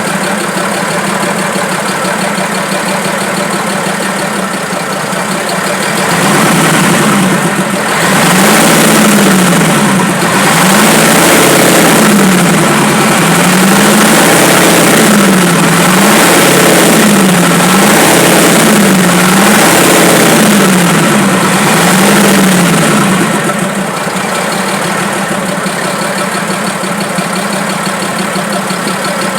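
Fiat 190 truck's diesel engine running, revved up and down repeatedly, its pitch rising and falling several times from about six seconds in, then dropping back to a steady idle near the end.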